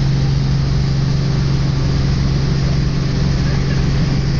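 Helicopter in flight, heard from inside the cabin: a loud, steady engine and rotor drone with a strong low hum.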